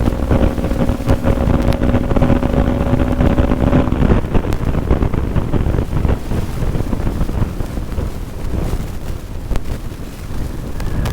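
Bajaj Pulsar NS200's single-cylinder engine holding a steady high-speed note under heavy wind buffeting on the microphone; about four seconds in the engine note drops away, leaving wind and road rush.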